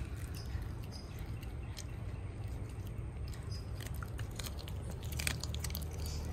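A dog chewing and crunching half-cooked broccoli and carrot pieces from a bowl, with many small irregular crunches that come thickest about five seconds in, over a steady low rumble.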